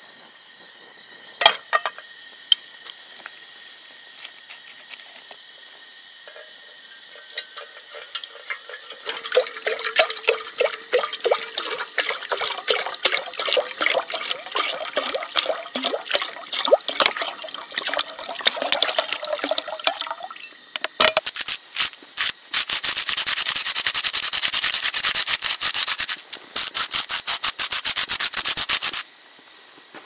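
Water poured from a plastic bottle into a metal camping pot, gurgling and splashing, with a pitch that rises slowly as the pot fills. Then a loud hiss with rapid crackling for the last several seconds.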